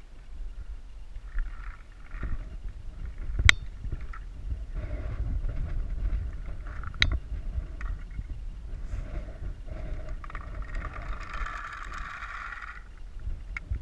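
Low rumble of wind and movement on a helmet camera, with two sharp cracks of paintball fire, one a few seconds in and the next about three and a half seconds later.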